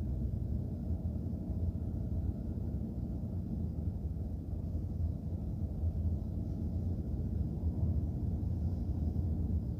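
A car driving: steady low rumble of engine and tyre noise, heard from inside the car.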